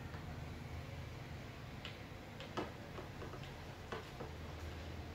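A few faint, light clicks and taps as a soldering iron and a small brass part are handled at a tabletop, over a steady low hum.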